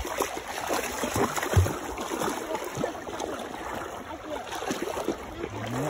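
Shallow creek water running over rocks, with irregular splashes and knocks of footsteps wading through it.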